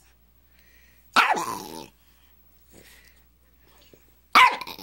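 Small dog giving two short, loud snarling barks about three seconds apart, each starting suddenly and falling in pitch: possessive toy-guarding, warning off a hand reaching for its rubber toy.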